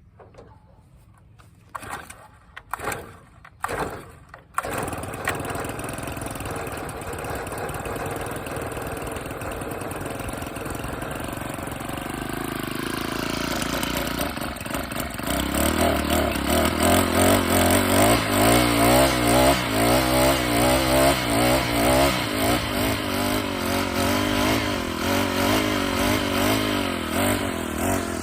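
Gas string trimmer (weed eater) with a newly replaced carburetor being pull-started: a few short pulls on the starter cord, then the small engine catches about four and a half seconds in and runs steadily. From about halfway it is throttled up and runs louder with an uneven, wavering pitch, dropping back near the end.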